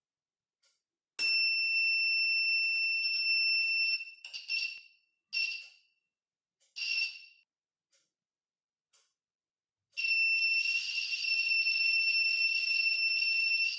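Small electronic buzzer of a buzz wire game sounding a high, steady tone whenever the wand's loop touches the maze wire and closes the circuit. There is one long tone of about three seconds, then a few short beeps, then another long tone from about ten seconds in until near the end.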